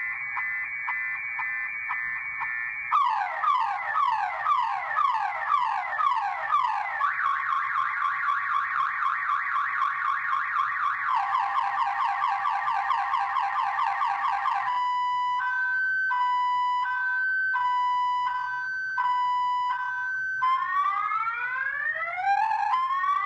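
Viper car alarm siren sounding in full panic mode, cycling through its tones: a rapid warble, a run of repeating sweeps, a fast warble, quicker sweeps, then a two-tone high-low beeping from about fifteen seconds in, and rising whoops near the end.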